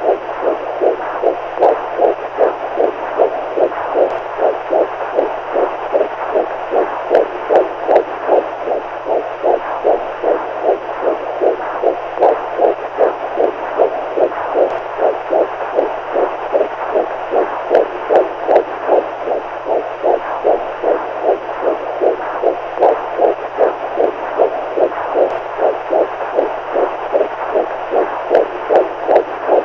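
Heartbeat sound for baby sleep: a steady, even rhythm of soft beats, about two a second, over a faint low hum.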